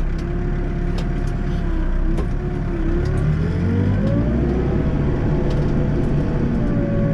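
Backhoe loader's diesel engine running under load with a hydraulic whine from the rear hoe, which rises in pitch about three seconds in as the engine speed climbs, with a few faint sharp clicks.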